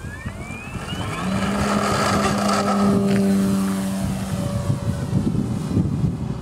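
Electric motor and propeller of a Horizon Hobby Beast 60E RC biplane throttling up for takeoff. A rising whine settles into a steady propeller drone, which swells and then fades a little as the plane climbs away.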